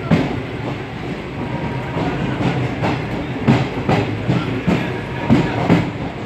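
Passenger train running, heard from inside the coach at an open window: a steady rumble with repeated clacks of the wheels over the rail joints.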